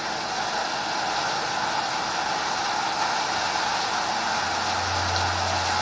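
Steady hissing noise, with a low hum coming in about four and a half seconds in.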